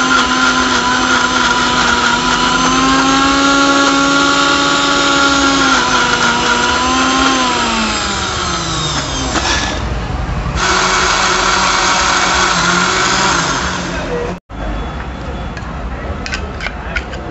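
Electric mixer grinder with a stainless-steel jar running at full speed, blending chunks of frozen milk into a shake. Its motor pitch sags and winds down about eight seconds in, then it runs again for a few seconds. A few light clinks come near the end.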